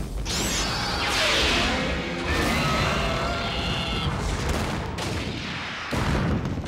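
Kaiju-battle sound effects: dense crackling blasts and crashes over dramatic music, with a wavering, pitched creature cry from about two to four seconds in.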